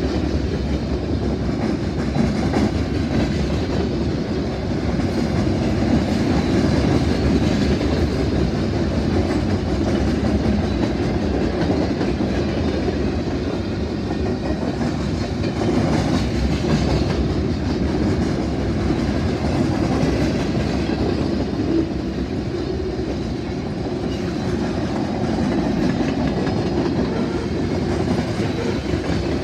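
Freight train cars rolling past close by: a steady rumble and clatter of steel wheels on the rails, continuing without a break.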